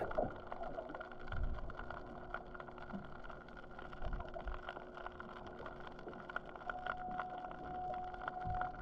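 Muffled underwater audio with a steady machinery hum, probably from the boat or the oil platform. A second, higher hum joins near the end, and a few dull knocks come through.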